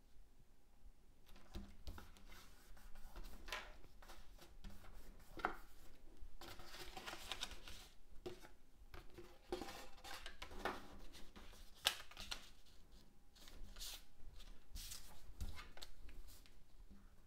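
Card stock being handled and folded by hand on a cutting mat: faint, irregular paper rustling and sliding with scattered light taps.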